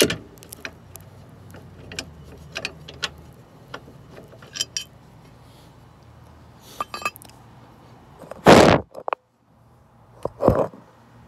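Hardware being handled at a steel sway-bar mounting bracket: scattered small metallic clicks and clinks as bolts are fitted by hand, with two louder scuffing noises near the end.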